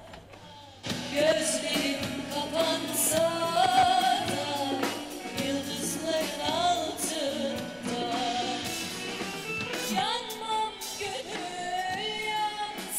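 Music with a woman singing, starting about a second in.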